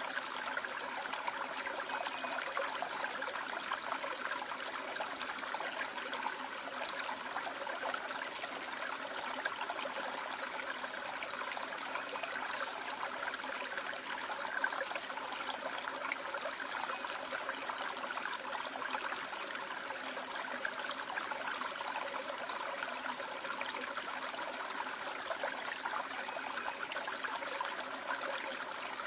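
A rocky river or valley stream running over rocks, as a steady, unbroken rush of water.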